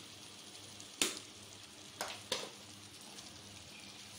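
Chicken pieces, tomatoes and spice masala sizzling steadily in a pot being browned, with three sharp taps, one about a second in and two close together around two seconds in.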